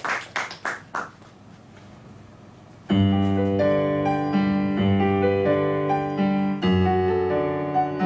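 The last few scattered claps of applause die away in the first second. After a short lull, about three seconds in, a piano begins the song's intro: held chords over bass notes that change about once a second.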